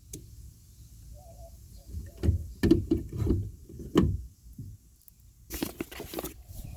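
Handling knocks and clicks as a turn signal bulb socket is worked back into a car's taillight housing. About six dull knocks come in the middle, then a short rustling clatter near the end.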